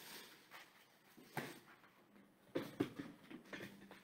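Faint handling noise of a plastic storage box full of clothes being carried and set down: a light knock a little over a second in, then a cluster of knocks and rustles in the second half.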